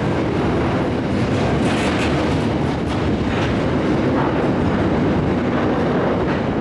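Open freight wagons rolling past on steel wheels: a steady rumble of wheels on the rails with a few clicks over rail joints.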